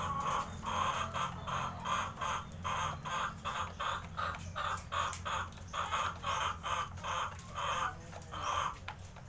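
Hen clucking over and over, about two to three short clucks a second, stopping near the end, over a steady low hum.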